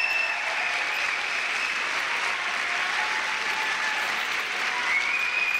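Theatre audience applauding steadily at the close of a dance performance.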